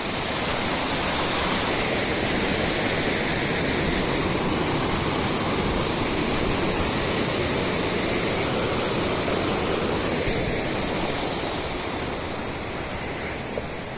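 The Rispana River flowing, a steady rush of water that eases a little near the end.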